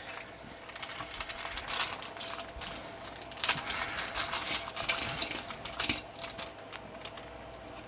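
Hard plastic action figure and small parts handled on a table: irregular light clicks, taps and rattles, busiest in the middle.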